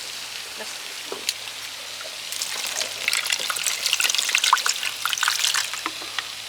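Water trickling and pouring, growing louder and crackly from about two seconds in until near the end.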